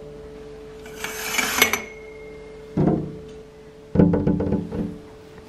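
A rustling hiss, then a muffled voice and knocking heard through a closed glass patio door from a person shut outside.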